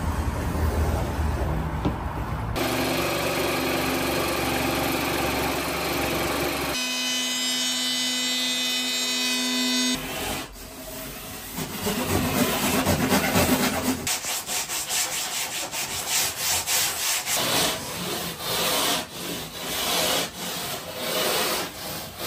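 Hand tools working a foam surfboard blank: sawing and rubbing on the foam, then sandpaper sanding the blank by hand in even strokes, about two a second, through the last several seconds.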